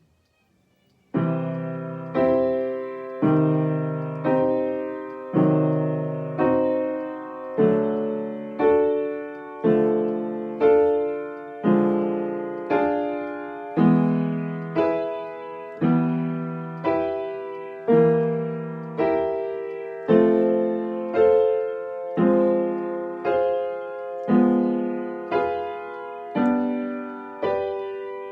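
Piano keyboard playing a slow, even series of block chords, one struck about every second, each ringing and fading before the next; the playing starts about a second in.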